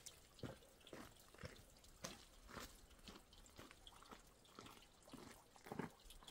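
Faint footsteps of a hiker walking on a dirt trail, roughly two steps a second.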